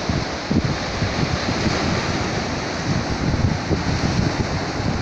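Sea surf washing in and foaming over low shore rocks, a steady rushing, with wind gusting on the microphone.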